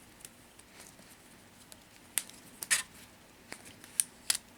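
A handful of light, sharp clicks and taps from small hard parts being handled while a freshly glued Swiss Army knife is secured for the glue to set, the loudest about two-thirds of the way through and again near the end.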